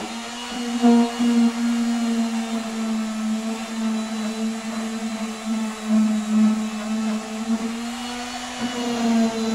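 Handheld electric orbital sander running steadily against a wooden board, a steady motor hum whose pitch shifts slightly near the end.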